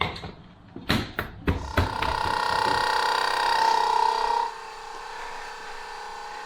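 A few sharp metallic clicks from a torque wrench on the lug nuts, then a steady pitched hum starts about a second and a half in. The hum drops in level about three seconds later and carries on more quietly.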